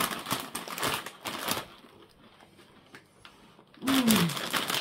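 Crunchy potato chips being bitten and chewed, a quick run of crisp cracks for about the first second and a half. Near the end the crunching comes back loud with a hummed 'mmm' that slides down and then up in pitch.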